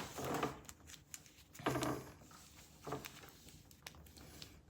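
Handling noise from paper and plastic-bagged comics being shuffled and rustled, in three short bursts with a few light clicks between them.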